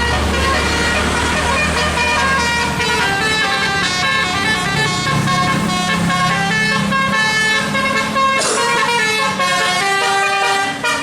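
Bus 'telolet' multi-tone horn playing a quick tune of stepped notes, over the low rumble of the bus's engine, which fades after the first few seconds. A brief rising whoosh comes about eight seconds in.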